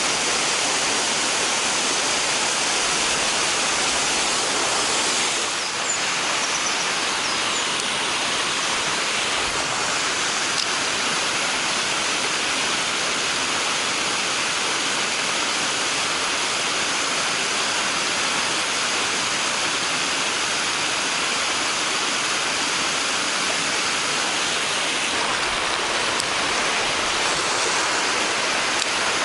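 Mountain stream water rushing over rocks: a steady, even hiss.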